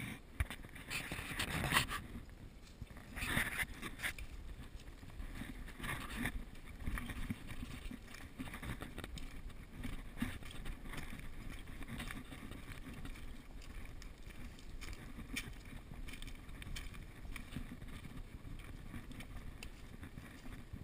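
Footsteps on dry leaf litter and twigs along a forest trail, an irregular rustling and crackling over a low rumble of wind and handling noise on a carried action camera. A few louder rustling bursts come in the first four seconds.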